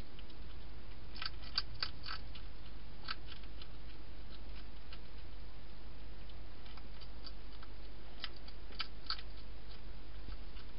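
Wild hedgehog eating inside a plastic feeding box: crisp crunching clicks in quick clusters about a second in and again near the end, with scattered single ticks between, over a steady low hum.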